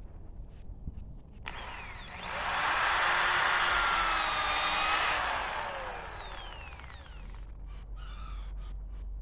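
Corded electric drill boring a hole through wood. Its whine rises as it speeds up about a second and a half in, holds steady for about three seconds, then falls away as it winds down.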